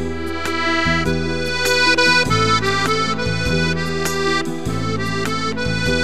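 Piano accordion playing a melody in sustained reedy notes on the right-hand keyboard over left-hand bass and chord accompaniment, with notes changing every fraction of a second.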